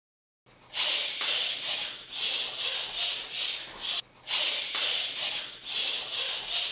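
A quick run of short swishing whooshes, two to three a second, with a brief break about four seconds in. They go with the fast strikes and parries of a hand-to-hand combination drill.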